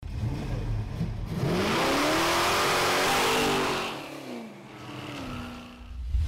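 Car engine revving up as a title sound effect. Its pitch climbs over about a second and then holds, with a loud rushing hiss over it. It eases off about four seconds in, and a shorter, quieter rev follows.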